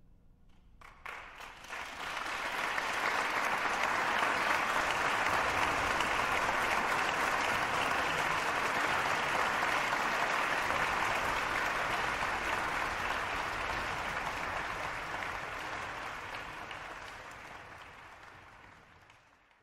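Applause: a few separate claps about a second in build into dense, steady clapping, which then slowly fades out toward the end.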